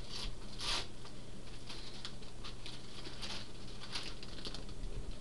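Christmas wrapping paper and tissue paper rustling and crinkling as a present is torn open by hand, in irregular short bursts.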